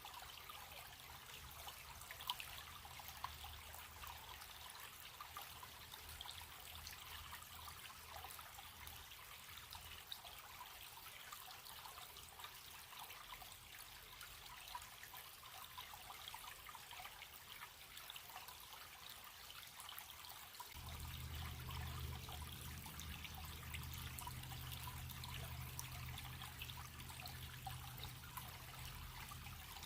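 A shallow running stream trickling and babbling steadily and faintly. A low rumble underneath grows louder about two-thirds of the way through.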